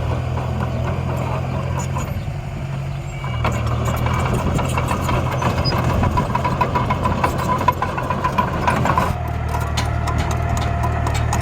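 Miniature dump trucks and bulldozer running with a steady engine-like drone, with scattered clicks and scrapes from soil and stones. The sound dips briefly about two seconds in, then gets busier with a faint whine until about nine seconds in.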